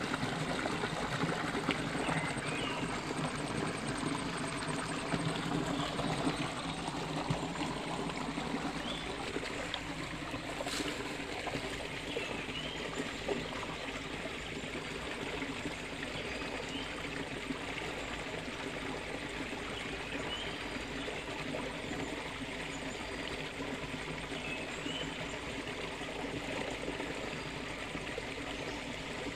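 Shallow stream rushing and splashing over rocks, a steady sound of running water.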